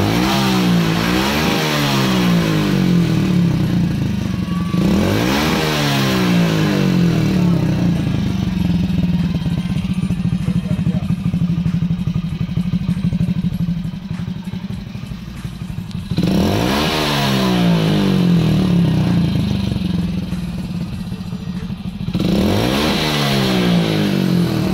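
Hero Splendor motorcycle's single-cylinder four-stroke engine, heard close to the exhaust, idling and revved up four times, each rev rising and falling back to idle. The engine has just been decarbonised.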